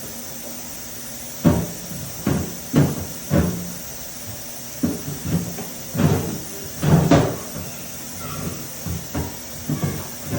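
Irregular knocks and clunks of household items being handled and set down, about ten in the space of nine seconds, each ringing briefly.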